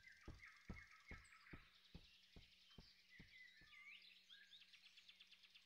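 Near silence: faint forest ambience with small bird chirps, and a soft regular ticking, about two or three ticks a second, that fades away about two thirds of the way through.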